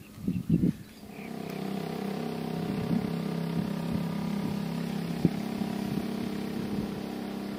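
A few short knocks, then from about a second in a motor engine running at a steady pitch.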